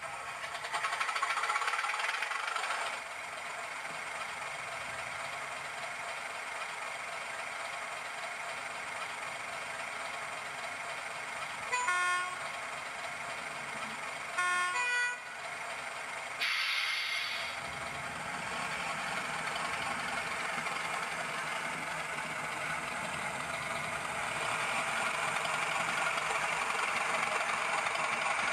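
Hornby TTS sound decoder playing its British Rail Class 31 diesel sound through a small loose speaker. The engine starts up and runs at idle. Two horn blasts come about 12 and 15 seconds in, then a short burst of air hiss. From about three-quarters of the way through, the engine builds up as the chassis moves off.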